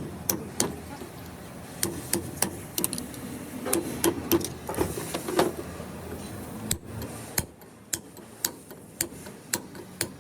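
Light sharp taps and clicks at uneven intervals, from hand-tool work on a hydraulic jack.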